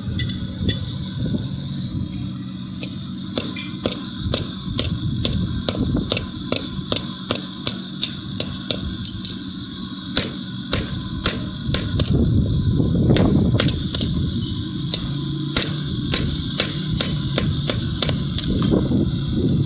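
Hammer blows on hot steel at the anvil, struck in a steady run of about two to three a second, over a steady low hum and rumble.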